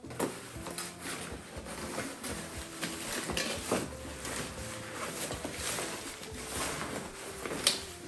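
Handling of a photo lighting kit in its black carry bag: rustling of the bag and folded umbrellas, with repeated clicks and clacks of metal light stands and boxes being moved, and one sharp knock near the end.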